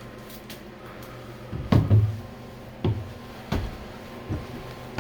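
Footsteps climbing stairs: a heavy double thud about two seconds in, then single steps landing about every three quarters of a second.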